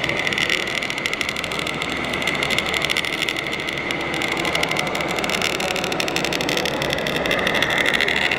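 A 1/14-scale radio-controlled model truck driving slowly past, giving a steady engine-like running sound with a fast even pulse and a steady high whine.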